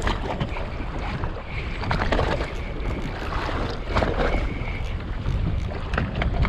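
Wind buffeting the microphone over water sloshing against the side of a small open boat in rough water, while a small spinning reel is cranked.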